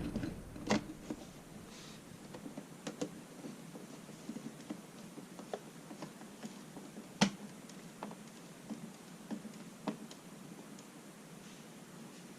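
Faint, scattered small clicks and taps from a screwdriver and a plastic outlet cover plate being handled and fitted, with one sharper click about seven seconds in.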